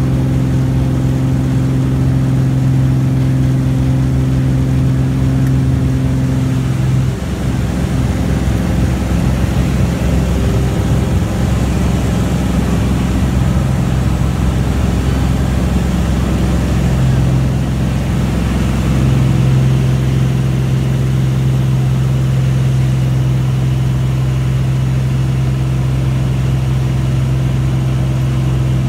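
Single-engine propeller airplane's engine and propeller at takeoff power, heard from inside the cockpit as a loud, steady drone through the takeoff roll and climb. About seven seconds in, around liftoff, the drone turns rougher and wavering for a while, then settles back to a steady tone.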